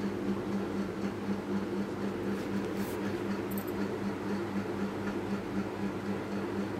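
A flat metal spatula stirring and scraping a thick, drying egg halwa mixture in an aluminium pot, over a steady low hum that pulses a few times a second.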